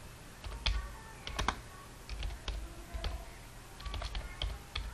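Typing on a computer keyboard: keystrokes coming unevenly, a few at a time with short pauses between.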